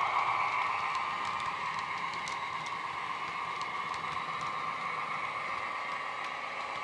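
Model Class 28 Co-Bo locomotive's Howes DCC sound decoder playing its diesel engine sound through the model's speakers, slowly fading as the train runs away round the curve, with faint clicks from the coach wheels on the track.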